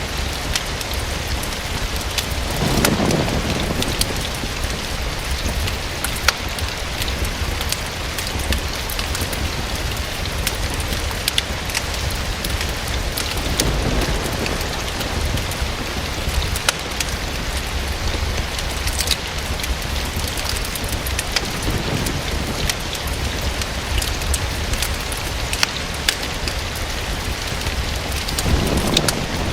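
Steady rain falling against a window, with scattered sharp ticks and pops through it. A few soft low rumbles swell up and fade every several seconds.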